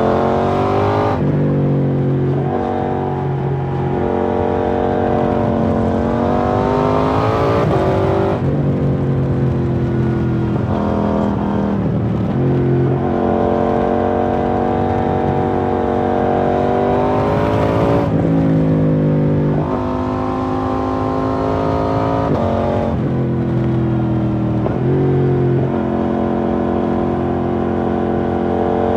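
2019 KTM 790 Duke's parallel-twin engine running through an IXRace MK2 aftermarket exhaust while riding. The engine note climbs in pitch, then drops sharply several times as the rider shifts gear and pulls again.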